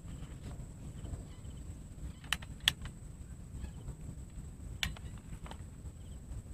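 A few sharp clicks and knocks from an airgun being handled in tall grass, the loudest a little under three seconds in, over a low rumble of wind on the microphone and a thin steady high whine.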